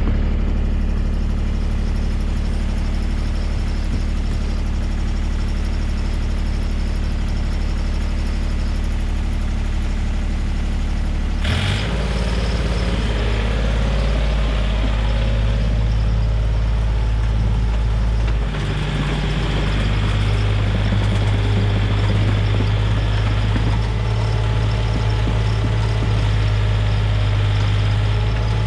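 Komatsu PC28 mini excavator's diesel engine running steadily while backfilling a trench. A clunk and a change in the engine's note come a little before halfway, and the note shifts again about two-thirds through.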